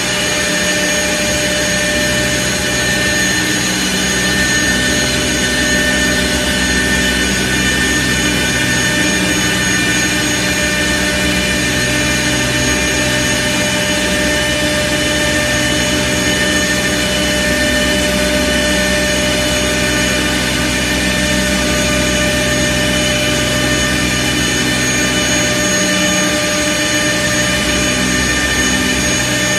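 CNC pool cue lathe running and turning a wooden cue blank: a steady high whine from its cutter spindles, with several steady tones over an even cutting noise.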